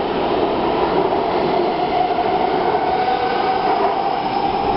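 Taipei Metro C341 train pulling out of an underground station and accelerating into the tunnel: a steady rumble of wheels on rail with a motor whine that rises slightly in pitch. The last car clears the platform partway through, and the sound carries on from the tunnel.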